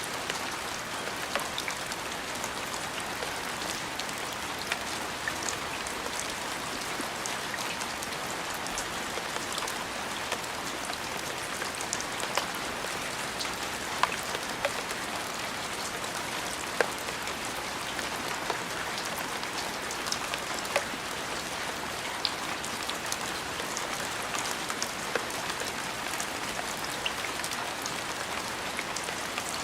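Steady rain falling, with scattered louder drops landing sharply at irregular moments over the even hiss.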